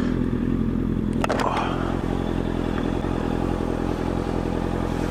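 Motorcycle engine running at steady revs, most likely the rider's Honda CB650F inline-four, with a couple of sharp clicks a little over a second in.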